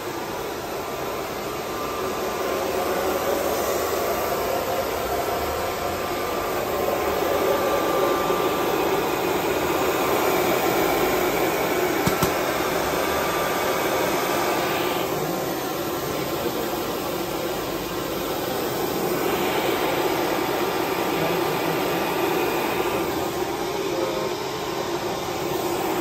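Steady whooshing hum of running machinery, growing louder and softer by turns.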